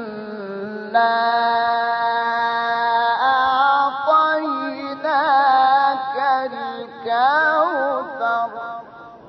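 Egyptian male Quran reciter chanting in the melodic mujawwad style in maqam Nahawand. He holds a long steady note, then turns it into wavering ornamented runs, and the voice fades near the end.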